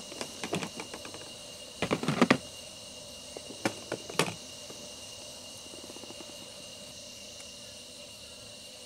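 Crickets trilling steadily while objects are rummaged in a camping storage box, with a few clattering knocks, the loudest cluster about two seconds in and two more knocks around four seconds.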